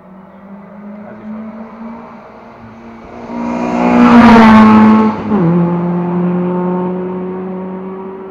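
Classic Lada rally car's four-cylinder engine at high revs, approaching and passing close by, loudest about four seconds in, with a sudden drop in pitch as it goes past, then pulling away and fading.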